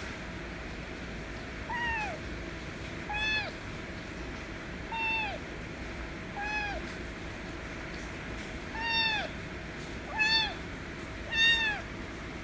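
Kitten meowing loudly and over and over, seven short meows each falling in pitch, about one every second and a half, with the last two the loudest.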